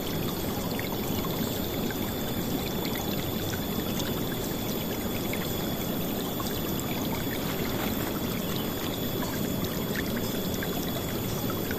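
River water flowing and splashing steadily, a dense rushing sound weighted to the low-middle range, with small droplet splashes scattered through it.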